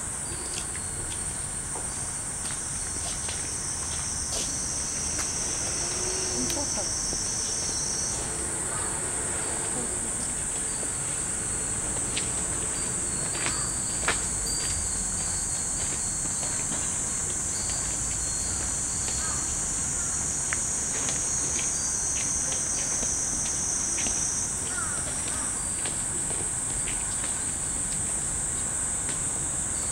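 Steady, high-pitched drone of summer cicadas, with a second, lower band of insect song dropping out about eight seconds in and returning briefly past twenty seconds. Faint, scattered clinks of hanging metal wind chimes (fūrin) sound through it, one louder about halfway through.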